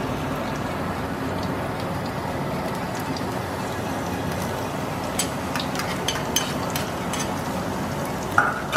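Diced garlic sizzling steadily in hot oil in a wok, with scattered small pops and crackles from about halfway on.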